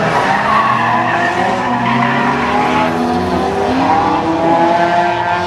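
Toyota MR2 (SW20) driven hard through a gymkhana course. The engine note rises and falls as it is revved and lifted off between corners, over a hiss of tyre noise with some squeal.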